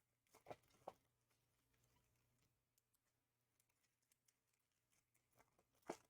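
Near silence with a few faint soft clicks of trading cards being handled: two close together just after the start and one near the end.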